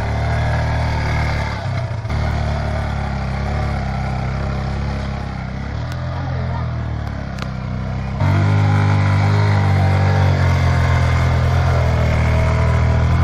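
Motorcycle engines running at low speed as the bikes move over sand. The engine sound becomes suddenly louder and steadier about eight seconds in.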